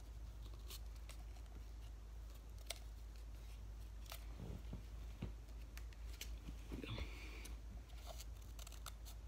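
Yellow paper rustling faintly as a sheet is rolled into a tight tube by hand, with scattered small clicks and taps of the paper being handled.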